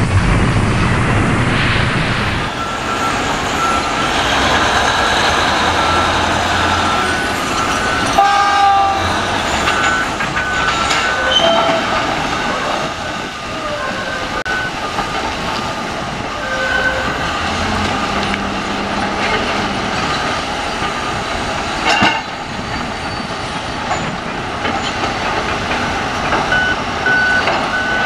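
A P&H 2800 electric rope mining shovel working: a continuous heavy mechanical rumble and grinding of steel, with brief high squeals and metal clanks, the loudest about 8 and 22 seconds in, as rock is dumped from the dipper into a haul truck and dug from the face. The first two seconds carry a short low boom from the channel's logo intro.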